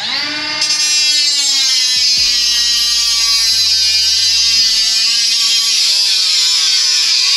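Small electric power tool cutting through a replacement screen-frame rail: a loud, steady buzzing whine that sags slightly in pitch as it bites in.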